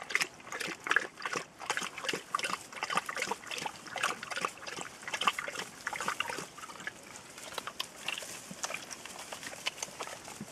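Rhodesian Ridgeback puppies nursing from their standing mother, a busy run of short wet suckling sounds, along with the mother lapping water from a bowl. The sounds come thick and fast for about seven seconds, then thin out.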